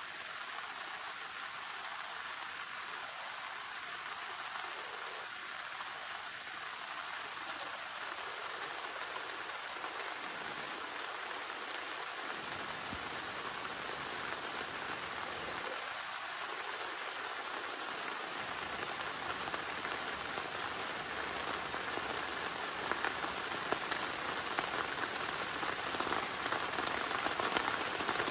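Steady rainfall, gradually getting heavier, with a few sharper, louder drop hits close by in the last few seconds.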